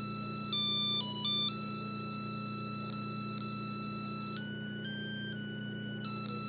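Audiovox CDM 4500 mobile phone playing a beeping ringtone: a simple one-voice tune of pure tones, with long held notes broken by a few quick note changes. A steady low hum runs underneath.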